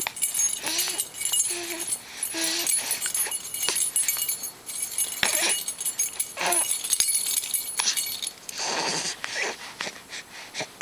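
A bunch of keys jingled and shaken, with a thin metallic ringing, until about eight seconds in, while an infant makes short coos and squeals.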